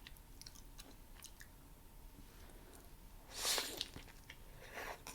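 A person chewing a plant-based Impossible burger close to the microphone, with soft wet mouth clicks. There is a louder squishy chew about three and a half seconds in and a shorter one near the end.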